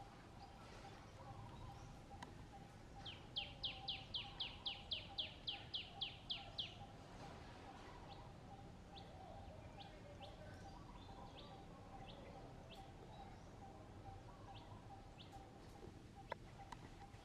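A bird calling a rapid run of about a dozen sharp, downward-sliding notes, about four a second, then giving scattered single chirps, over a faint steady hum. A sharp click comes near the end.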